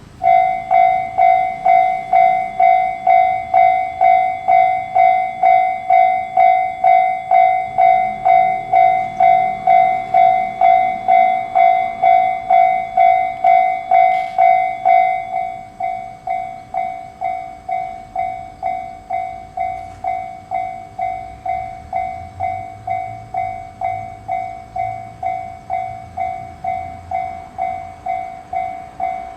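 Japanese level-crossing electronic warning alarm starts up abruptly and rings a steady two-tone ding about twice a second, signalling an approaching train. About halfway through it becomes noticeably quieter, and a low rumble comes in under it.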